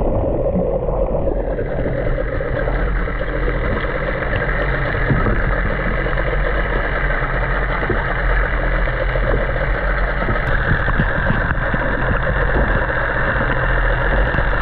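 Muffled, steady underwater noise from a camera held below the sea surface: water rushing past the microphone, with a low steady hum underneath.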